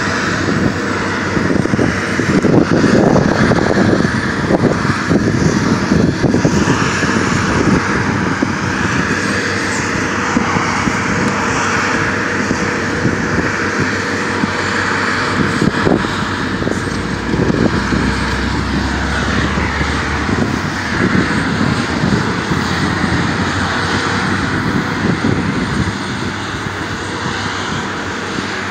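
Seismic vibrator trucks running with a steady engine drone, mixed with wind buffeting the microphone. A deeper low hum joins for a few seconds past the middle.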